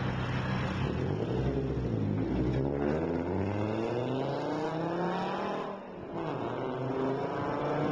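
Fiat Marea's engine and exhaust rumbling strongly as it is revved up, the pitch climbing over several seconds, dropping briefly about six seconds in, then climbing again.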